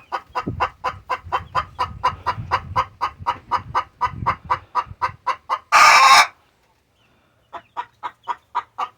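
A hen clucking in a rapid, steady run of short calls, about four to five a second. A brief loud burst of noise comes about six seconds in, then the sound drops out for about a second before the clucking resumes.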